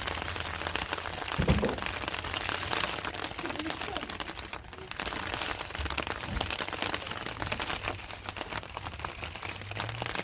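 Heavy rain pattering as a dense crackle of drops, with a dull thump about a second and a half in and a weaker one near the middle.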